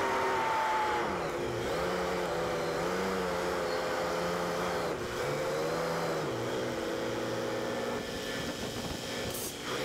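Truck engine running under way, its pitch rising and falling several times over a steady rush of road and wind noise.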